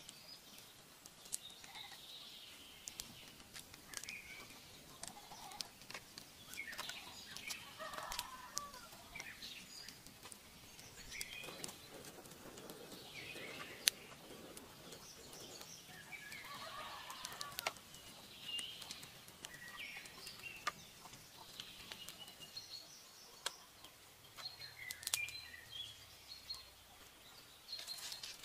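Faint outdoor ambience of scattered bird calls, with a sharp click now and then; the loudest single click comes about halfway through.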